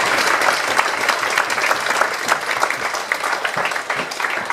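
A room of guests applauding, a dense patter of clapping that thins out and fades near the end.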